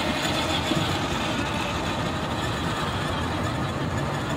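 A 12-volt kids' ride-on toy truck rolling over wooden boardwalk planks, giving a steady low rumble from its electric drive and wheels.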